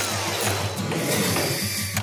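Background music with a mechanical, tool-like noise mixed over it.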